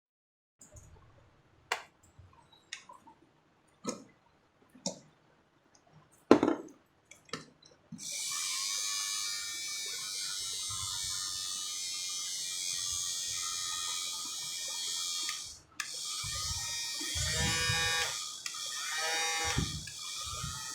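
A few clicks and knocks, then a steady hiss of air with a faint buzz from a Quick 850A hot air rework station blowing. The airflow cuts out briefly about two-thirds of the way through and starts again.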